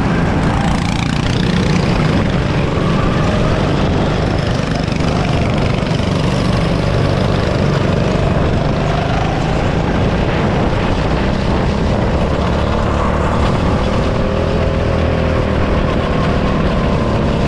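Go-kart engine running hard under the driver, its pitch rising and falling through the laps.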